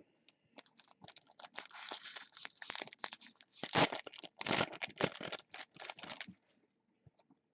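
Trading-card pack wrapper being torn open and crinkled by hand, a quick run of rustling and crackling for about six seconds, then stopping.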